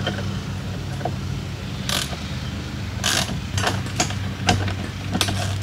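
Metal clicks and clinks of a hand tool with a hex bit tightening the bolt in the end of a motorcycle crash cage, a handful of separate clicks at irregular moments, over a steady low hum.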